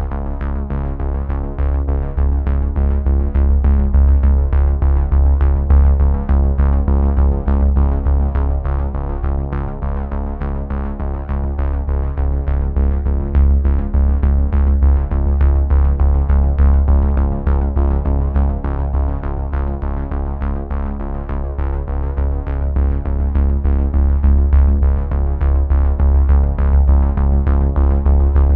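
Background music: sustained synthesizer chords over heavy bass with a steady beat.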